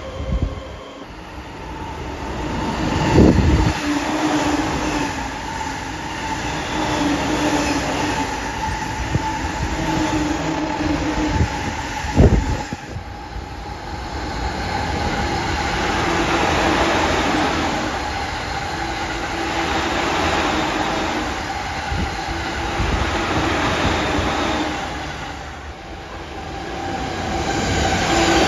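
Electric trains passing at speed one after another, first a 185 series set and then E231 series commuter trains: a continuous rush of wheels on rail with a held tone running through it. Two sharp thumps stand out, about three seconds in and about twelve seconds in.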